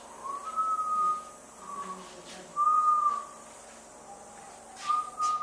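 A person whistling a few long, nearly steady notes with short pauses between them, the last one starting near the end.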